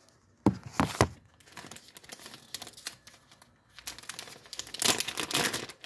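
Crinkly plastic packaging being handled and opened: a few sharp crackles about half a second in, scattered lighter crinkling, then a louder run of crinkling near the end.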